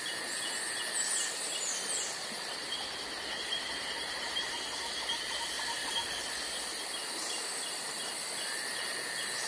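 Steady chorus of insects chirping and trilling: several high steady tones layered with rows of short, evenly repeated chirps.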